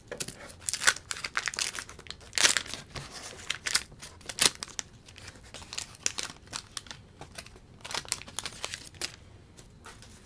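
Wax-paper wrapper of a 1989 Donruss baseball card pack being torn open and crinkled: a rapid run of sharp crackles, loudest in the first half and thinning out toward the end.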